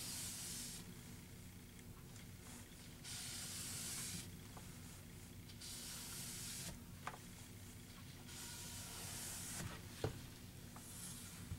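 Rag wiping over a freshly stained oak table top, taking off excess stain: five soft hissing strokes, each about a second long, with a few light ticks between them over a steady low hum.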